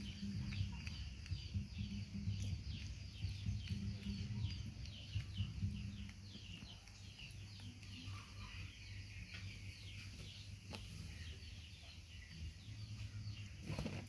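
Birds chirping in the background: quick, repeated high chirps, several a second, that thin out about halfway through, over a steady low hum.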